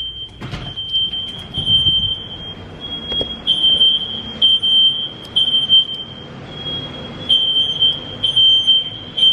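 Smoke-alarm sound played loudly through a TV's speakers as a prank: a shrill, high-pitched tone, steady at first and then broken into beeps about once a second.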